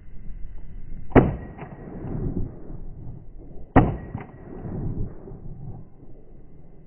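Two shotgun shots fired at a wild boar, about two and a half seconds apart, each followed a moment later by a fainter sharp crack.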